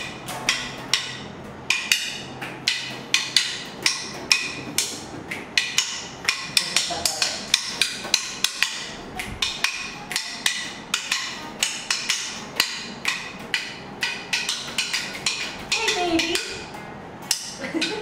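Drumsticks tapping out a steady, quick beat of sharp, woody clicks, about two to three a second, for an informal jam. A voice joins near the end.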